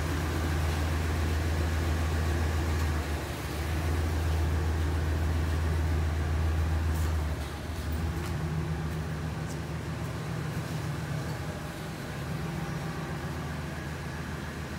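Van engine idling: a steady low drone that shifts in tone and gets slightly quieter about seven seconds in.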